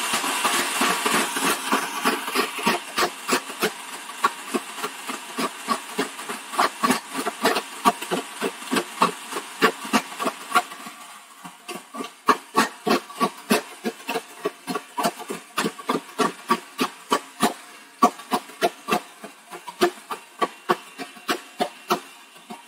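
Slush Puppie home slushie machine running, its motor-driven blade shaving ice in the jug: a dense grinding hiss that thins out about halfway through, over a steady knocking of ice chunks against the blade, about two or three knocks a second.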